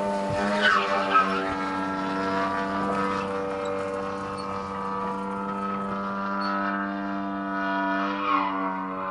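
Large-scale radio-controlled Extra 260 model plane's ZDZ 180 twin-cylinder two-stroke petrol engine running in flight, holding one steady pitch. It swells briefly louder about a second in and again near the end.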